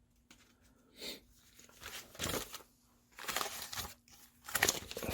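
Hands handling thin wires and small plastic model parts: about four short rustling, crinkling sounds with quiet gaps between them.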